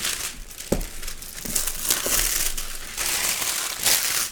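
Packaging crinkling and rustling as a shipping box is handled and opened by hand, in several surges, with a sharp knock about three-quarters of a second in.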